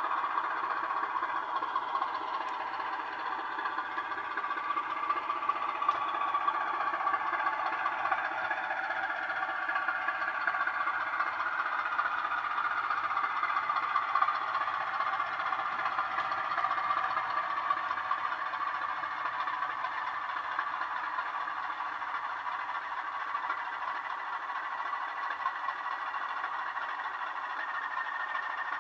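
Sound decoder in a model Class 16 diesel locomotive playing a Class 15/16 diesel engine recording through a small bass-enhanced speaker, running steadily as the loco moves, thin in the bass. A steady high whine comes in about halfway through.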